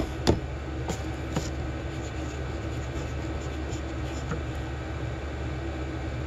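Steady low mechanical hum of room machinery, with a sharp click just after the start and a few fainter clicks over the next second or so as small parts are handled.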